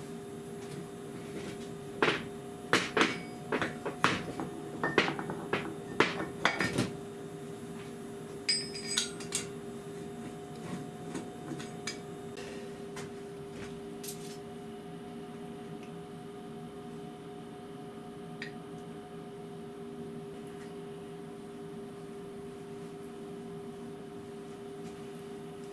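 Metal machine parts knocking and clinking together as they are handled and fitted during assembly: a quick run of about a dozen ringing knocks in the first several seconds, then a few lighter clinks, over a steady hum.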